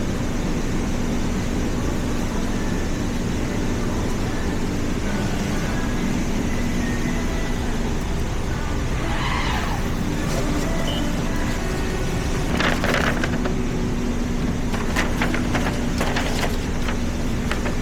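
Steady rumble and hum of a car's cabin, with several short rustling noises in the second half.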